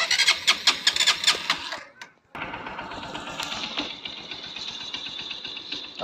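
Electric starter cranking the Honda TMX Supremo 150's single-cylinder engine in a quick, even chatter for about two seconds; the starter turns again now that the corroded battery terminal has been cleaned. After a brief break the engine is running steadily at idle.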